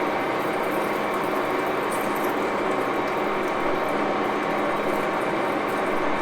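1941 Axelson gear-head engine lathe running steadily, its gearbox giving a constant hum with higher whining tones over dense mechanical noise.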